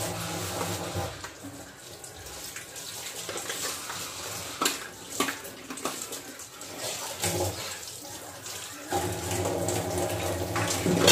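Kitchen tap running into a stainless steel sink while plates are washed by hand. The flow is strongest at the start and again from about nine seconds in, with a few sharp clinks of plates in between.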